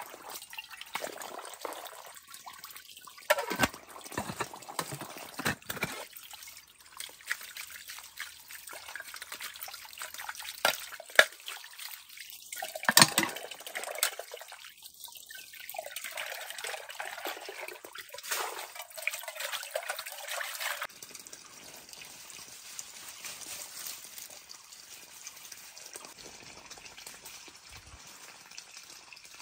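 Water trickling in a small forest stream, with several sharp, louder sounds in the first twenty seconds. After about 21 seconds it settles into a steadier, quieter trickle.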